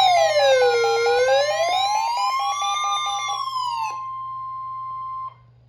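Electronic emergency alert tones: a siren-like wail sweeping slowly up and down, layered with a pulsing beep, then giving way near the end to a single steady alarm tone that cuts off abruptly.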